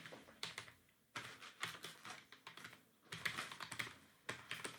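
Irregular run of light clicks and taps in quick clusters, with short gaps between them.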